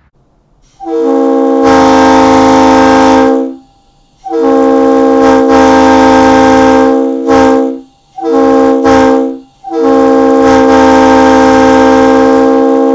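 Leslie RS3L three-chime locomotive air horn blowing a steady chord in four blasts: long, long, short, long, the railroad grade-crossing signal. The horn has just been rebuilt with new gaskets and donuts and runs on its original diaphragms.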